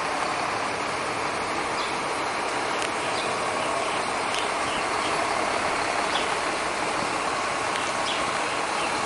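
Irizar PB coach on a Scania K340iB chassis driving slowly past and turning, its rear-mounted diesel engine running steadily.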